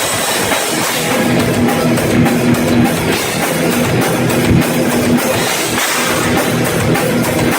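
A rock band playing live and loud, with drum kit and guitar.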